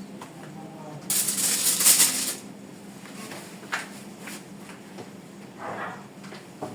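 A rustling, crinkling burst lasting about a second, starting about a second in, followed by a few light clicks and taps from kitchen handling.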